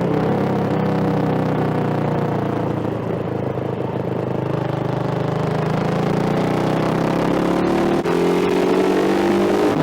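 Hero Xpulse 200's single-cylinder engine running loud through a modified, baffle-less exhaust. The revs fall away through the middle, then climb steadily over the last few seconds, with a brief break about eight seconds in.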